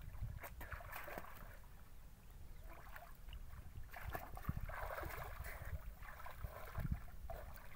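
Water splashing and sloshing around a person swimming in a river, heaviest from about four to six seconds in, over a steady low rumble.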